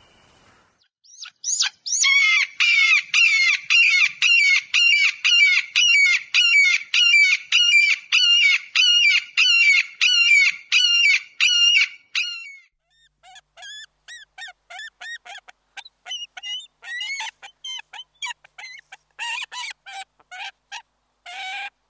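An eagle calling: a long run of loud, high, repeated calls, about two a second, for some ten seconds. After a short pause comes a second, fainter series of quicker, varied calls, with a few louder ones near the end.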